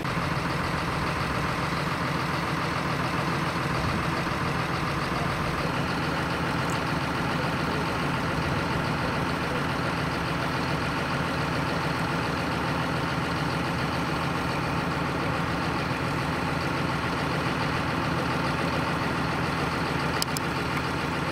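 Large diesel engine idling steadily.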